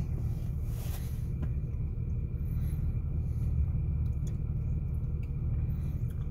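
Steady low rumble inside a car's cabin, with a faint steady high whine and a few faint clicks.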